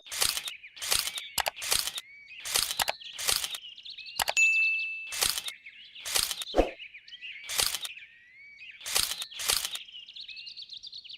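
Birds chirping steadily, cut through by a series of sharp knocks or taps, roughly one to two a second at uneven spacing. A short high steady tone sounds about four and a half seconds in.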